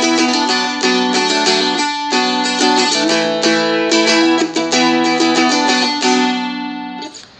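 Seagull Merlin strumstick dulcimer strummed in a steady rhythm, chords changing about every two seconds; the playing stops shortly before the end and the last chord dies away.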